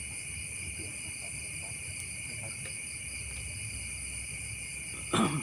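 Steady chorus of night insects, crickets among them, shrilling in several high unbroken bands over a low rumble. A brief loud noise cuts in just before the end.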